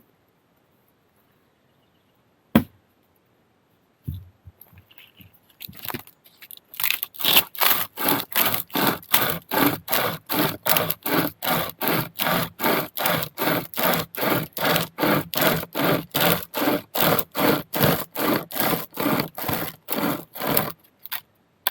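Hand saw cutting through wood: a few hesitant strokes, then a fast, steady back-and-forth rhythm of about two and a half strokes a second that stops shortly before the end. A single sharp crack comes before the sawing starts.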